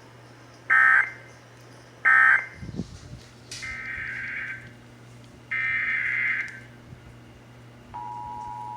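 Emergency Alert System data bursts: two short screechy squawks of the end-of-message code, then two longer data bursts of the next station's header. Near the end the steady two-tone EAS attention signal comes on.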